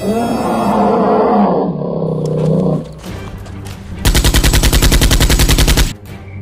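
A deep growling roar for nearly three seconds, then a loud burst of rapid machine-gun-style fire, about two seconds long, that stops suddenly.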